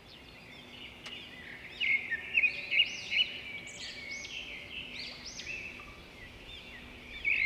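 Birds chirping: many short, high calls that rise and fall, fading in at the start.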